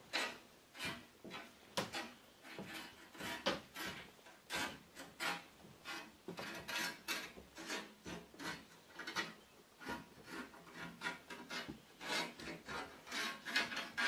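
Footsteps on old wooden floorboards, one or two steps a second, each a short scuffing scrape.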